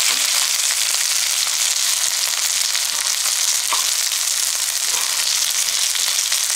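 Breaded chicken breast cutlets sizzling steadily as they shallow-fry in oil over medium-low heat.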